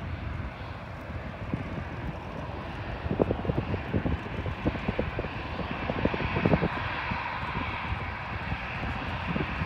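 Airbus A320 jet engines running as the airliner rolls along the runway after landing, a steady rushing sound that grows louder in the second half.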